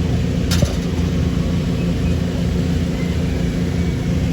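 A steady, loud, low mechanical drone of running machinery, with one sharp click about half a second in.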